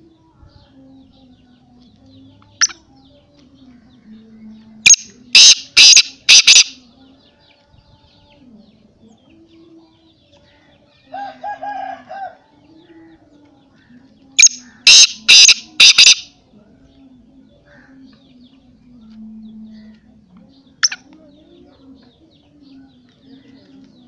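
Caged male black francolin calling: two bouts of five loud, harsh notes in quick succession, about ten seconds apart, with a single sharp note a couple of seconds before the first bout and another several seconds after the second.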